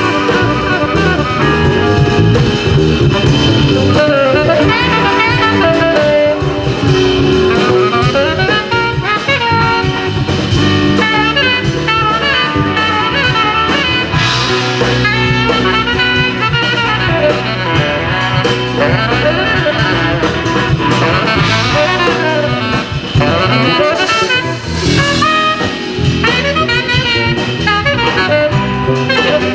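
Live jazz band of saxophone, guitar, bass and drum kit playing, with the saxophone carrying a busy melody over the bass and cymbals.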